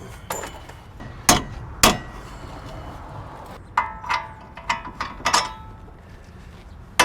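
Hammer blows on steel: two sharp strikes, then a quick run of about six ringing metallic strikes in the second half.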